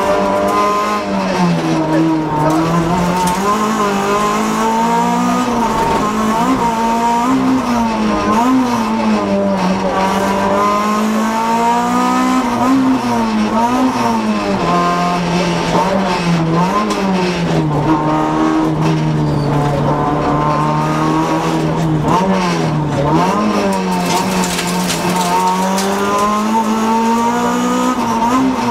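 Honda Civic rally car's four-cylinder engine at racing pace, heard from inside the cabin, its pitch climbing and dropping over and over as it accelerates and brakes through a run of bends.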